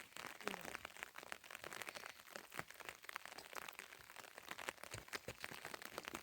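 Rain pattering on a surface: a dense, irregular crackle of drops.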